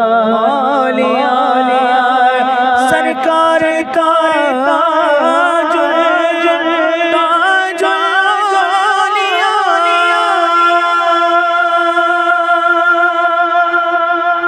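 A man singing a manqabat, a Sufi devotional song, with no words made out: a long wavering, ornamented vocal line that settles into one long held note about ten seconds in.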